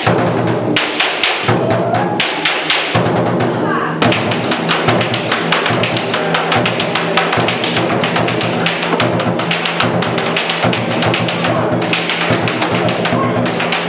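Music with a fast, rhythmic run of thumps and taps from boleadoras, the weighted gaucho cords, being swung and struck in time with the beat.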